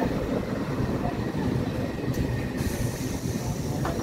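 Electric multiple-unit suburban local train moving alongside the platform: a steady low rumble of its wheels and running gear.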